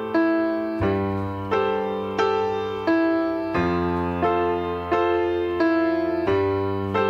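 Background music: a piano plays a repeated pattern of chords, struck about every 0.7 seconds, each fading before the next.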